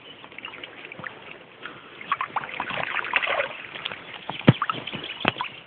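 Water trickling and splashing off a mesh fishing keepnet as it is lifted out of the water, with a couple of sharp knocks near the end.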